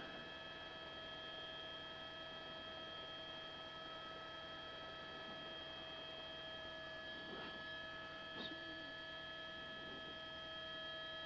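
Steady electrical hum with several constant high tones over it, the background noise of a news helicopter's intercom audio feed. Two faint brief blips come past the middle.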